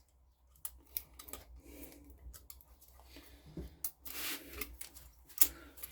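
Light metallic clicks and scraping of small hand tools (feeler gauge and Allen key) working the valve clearance adjuster on a small four-stroke engine's rocker, with one sharper click near the end.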